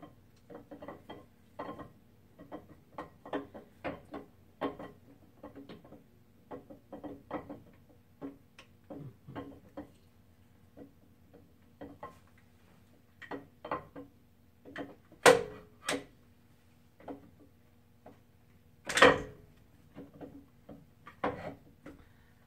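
Camshaft being wiggled and slid out of a Ford 272 Y-block V8: a string of irregular light metallic clicks and knocks as it is worked back and forth in its bearings, with a few louder knocks in the second half.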